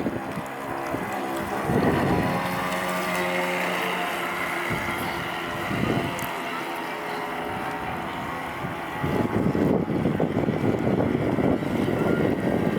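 Small brushed DC electric motor (a 550 motor) of an RC model boat running with a steady whine. About nine seconds in, the whine gives way to a louder rushing noise.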